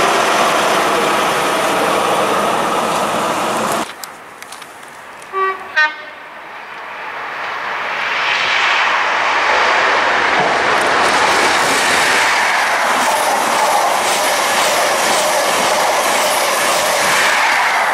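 LNER High Speed Train with its diesel power car running past, loud, until a cut about 4 s in. Then two short horn blasts, the second a fuller chord, and an LNER express passing through the station at speed, its wheel-on-rail rush building up and holding steady.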